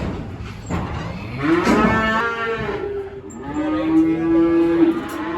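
Cattle mooing: two long calls, the first about a second and a half in and the second just after the middle.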